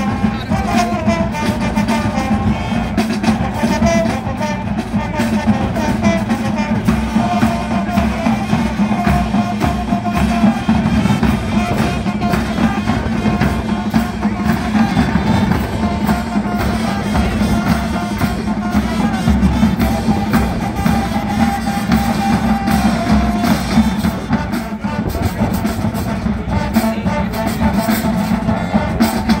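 High school marching band playing: a brass melody over held low sousaphone notes, with the drumline beating steadily underneath.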